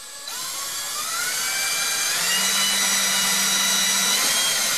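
Power drill with a 1/16-inch bit boring a pilot hole into hard oak cabinet face frame. The motor whine climbs in pitch as it speeds up over the first two seconds, holds steady under load, then starts to wind down at the very end.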